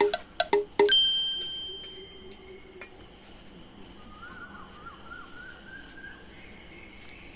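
A hand-held stone pounding on a flat rock to crush cooking ingredients: quick ringing knocks about three a second, ending about a second in with one louder strike that rings on as it fades. Then quiet outdoor background with a faint wavering bird call.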